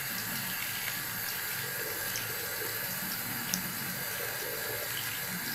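Water running steadily from a bathroom sink tap while a lathered face is washed.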